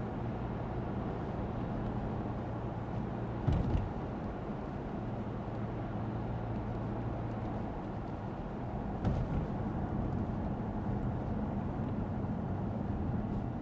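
Lexus ES 350 sedan driving on a wet road: a steady low hum of engine and tyres, with a short thump about three and a half seconds in and a smaller one around nine seconds.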